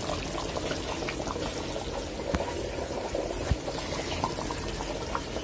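Liquid boiling hard in an aluminium cooking pot: a steady bubbling with scattered small pops.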